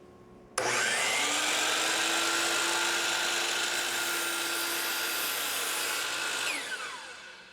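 DeWalt 779 12-inch miter saw fitted with an 80-tooth blade, starting up suddenly about half a second in and running at speed. Near the end it is switched off and spins down with a falling whine.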